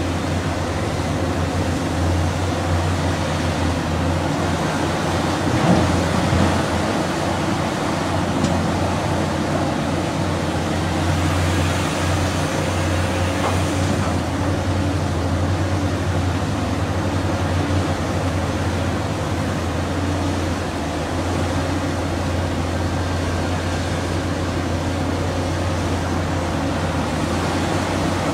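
Diesel engine of a Caterpillar 6015B hydraulic mining excavator running steadily under load while it digs and loads, a low even hum with a brief louder knock about six seconds in.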